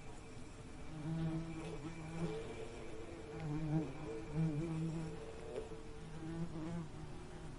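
Bees buzzing in flight: low, droning buzzes that swell and fade several times as they pass close by, their pitch wavering.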